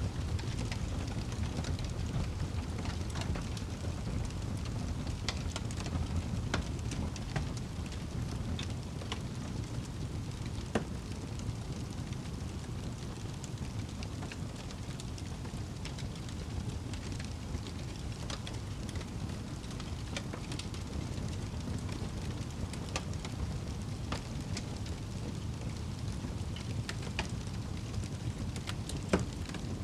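Wood fire crackling in a fireplace: scattered sharp pops and snaps over a steady low rumble, with one louder pop near the end.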